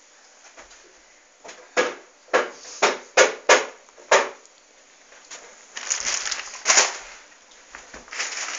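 A quick run of about six sharp knocks or bangs, roughly half a second apart, followed by rustling and scuffing noises.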